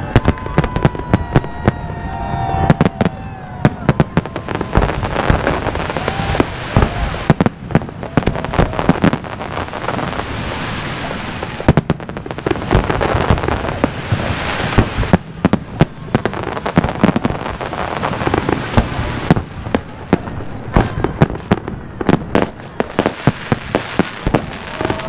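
Fireworks going off in a dense, continuous barrage: many sharp bangs in quick succession over steady crackling.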